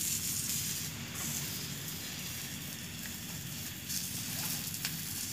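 Food sizzling as it is stir-fried in a pan on a portable gas stove: a steady hiss, with a brief click at the very start.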